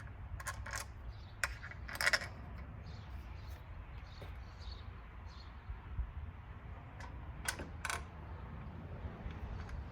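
Small stainless steel bolts and nuts clinking and tapping against the mirror mount as they are handled: a few light clicks in the first two seconds, the loudest about two seconds in, and two more sharp clicks near the end, over a low steady hum.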